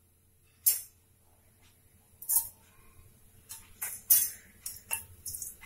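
Fennel seeds spluttering in hot oil and ghee in a pressure cooker: scattered sharp pops, a few at first and coming more often from about halfway in, the sign that the oil is hot enough for tempering.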